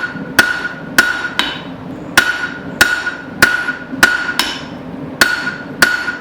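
Hammer blows on hot steel bar stock against an anvil, drawing out a long taper: about ten strikes at a steady rhythm of a little under two a second, each with a short ring.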